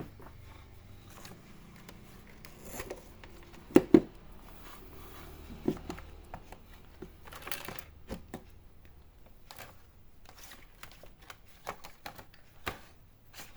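Handling noise: scattered clicks, knocks and rustling as objects are picked up and moved, with two sharp knocks close together about four seconds in.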